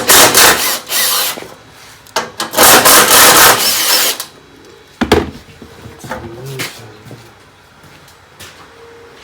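A hand ratchet with a 10 mm socket working on a bolt holding the ATV's plastic battery tray, in two loud rasping spells, then a sharp knock about five seconds in and quieter handling noises.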